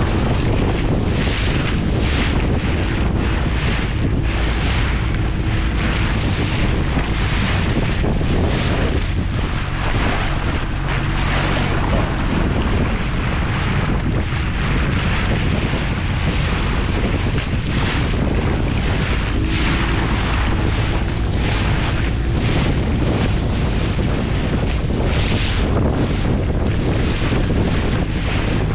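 Wind buffeting the microphone of a small boat under way, with water rushing and splashing past the hull in surges about once a second and the boat's engine running steadily underneath.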